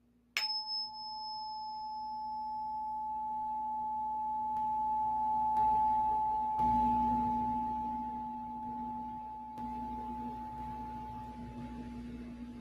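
Tuning forks ringing. One is struck about half a second in with a sharp click and holds a steady pure tone, and more tones join a few seconds later. The ringing swells and then slowly fades over a low steady tone.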